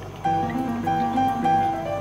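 Background music: a plucked-string melody of short, stepped notes, getting louder about a quarter of a second in.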